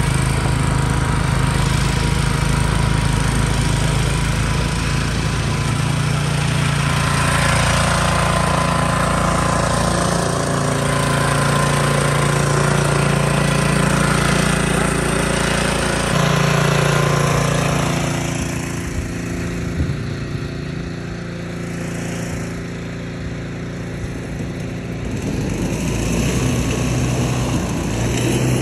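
Craftsman gas snowblower engine running steadily while it clears and throws snow. It grows quieter for several seconds past the middle, then picks up again.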